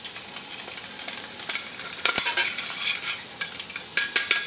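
Wire whisk clinking and scraping against a ceramic bowl as grated parmesan is stirred into beaten eggs for the carbonara sauce. The clicks come in uneven clusters, louder about two seconds in and again near the end.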